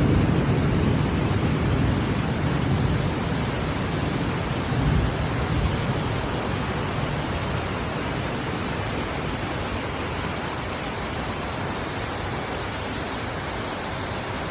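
Steady rain, an even hiss throughout, with a low rumble under it in the first several seconds that then fades.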